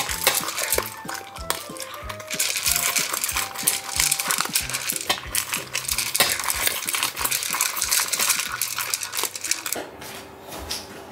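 Italian greyhound eating dry kibble from a stainless steel bowl: rapid clinks and crunches of kibble against the metal bowl. Light background music with a steady beat plays underneath, and the clinking thins out near the end.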